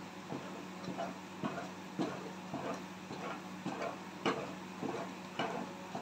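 Wooden spoon stirring thick, nearly finished haleem in a metal pot: irregular soft knocks and scrapes, about two a second, over a low steady hum.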